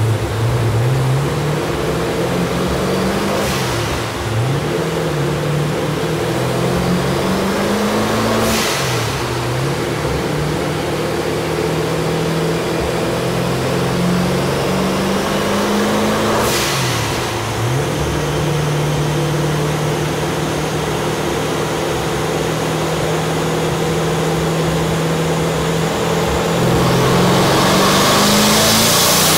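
Twin-turbo 427 cubic-inch LSX V8 of a Hennessey HPE1000 Camaro running fast and being revved several times, its pitch climbing and falling, with a short hiss of air as some of the revs drop. Near the end the engine gets louder and a high whine rises as the turbos spool up at the start of a dyno pull.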